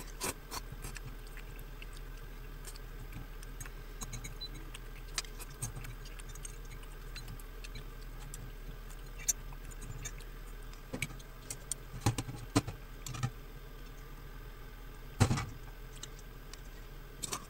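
Metal fork clinking and scraping against a ceramic plate while a plate of pasta is eaten, in scattered short clicks, with one louder thump about fifteen seconds in. A low steady hum runs underneath.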